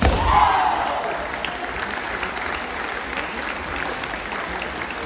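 Spectators in a gymnasium clapping to acknowledge a strike in a kendo bout. Over the first second a fencer's wavering kiai shout falls away.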